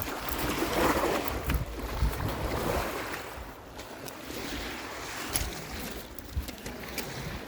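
Lake waves washing on the shore with wind buffeting the microphone, the gusts stronger in the first few seconds and then easing.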